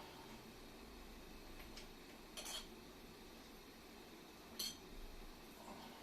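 Faint light metal clinks of parts and hand tools being handled on a dismantled air compressor, a few short separate taps about two and a half and four and a half seconds in.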